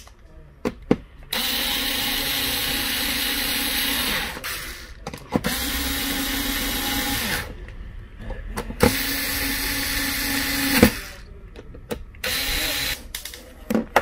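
Cordless electric screwdriver driving screws into a mini PC's bottom cover. Its motor runs steadily in four bursts, three of about two to three seconds each and a short last one, with small clicks between them as the screws are set.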